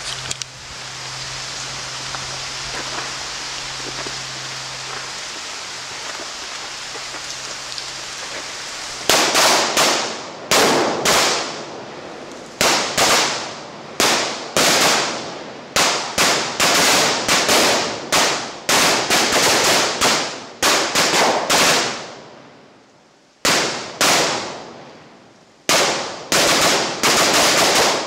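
A steady hiss for about nine seconds, then a chain of large firecrackers going off: loud sharp bangs in quick clusters, each dying away in an echo, keeping on past the end.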